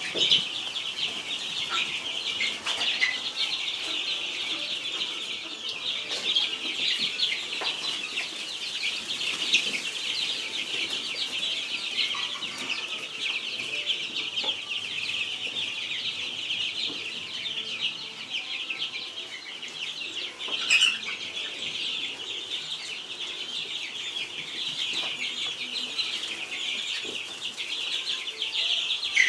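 Dozens of week-old chicks, layer and meat breeds, peeping continuously in a dense, high-pitched chorus. One brief knock about two-thirds of the way through.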